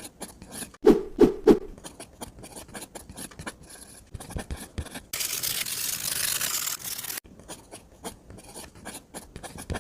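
Small tools and hands scraping, rubbing and tapping on miniature building materials, with three quick knocks about a second in and a steady hiss lasting about two seconds in the middle.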